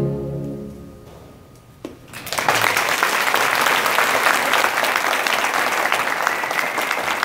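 A concert band's final held chord fades away, and about two seconds in an audience begins applauding and keeps clapping steadily.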